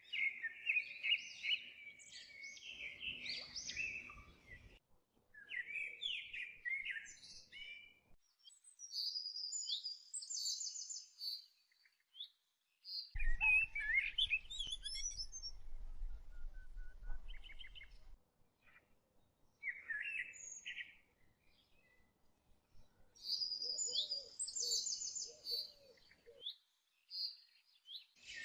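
Small birds chirping and singing in several bursts of quick high notes, broken by short spells of silence.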